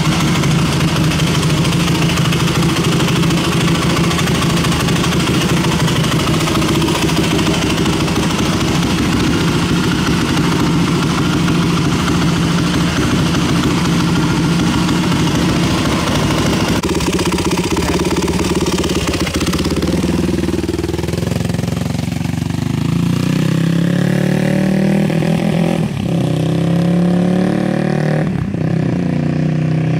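2003 Yamaha WR450F dirt bike's single-cylinder four-stroke engine running, steady at first, then, over the second half, revving and pulling away, its pitch rising and dropping again and again as it goes through the gears.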